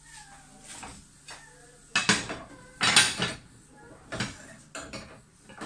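A ceramic plate and a frying pan clattering together on a gas stove as an omelette is turned out onto the plate: a handful of sharp knocks and scrapes, the loudest about three seconds in.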